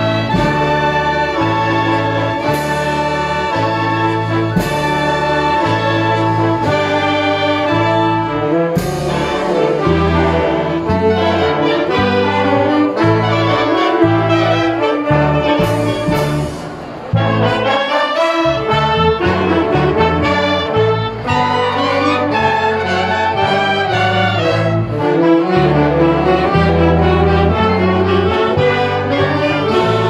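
Concert band playing: clarinets, saxophones, trumpets and trombones together over a steady bass line. The band breaks off briefly a little past halfway through, then plays on.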